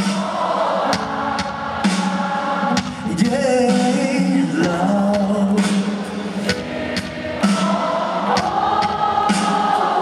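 Live Cantopop band music with singing, sustained chords and repeated sharp percussion hits.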